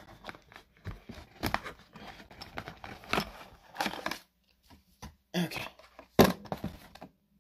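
Hands sliding graded trading-card slabs out of a cardboard box: cardboard rustling and scraping with sharp clicks of the hard plastic slabs knocking together, the loudest a little past six seconds.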